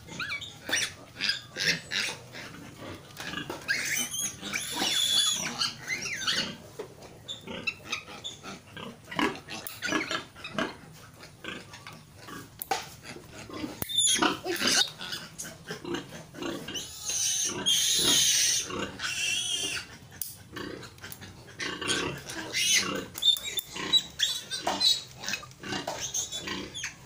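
Newborn piglet squealing as it is held and handled: a run of short, sharp squeals, rising to longer, louder shrieks about four seconds in and again around seventeen seconds.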